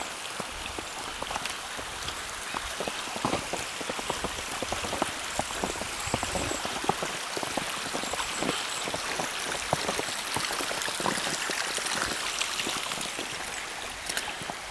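Snowstorm precipitation falling through the forest: a dense, irregular patter of small ticks over a steady hiss.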